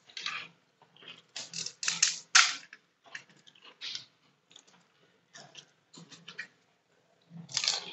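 Crisp fried puri (golgappa) shells crackling as fingers break them open, with irregular small cracks and crunches and a few louder crunches about two seconds in and again near the end.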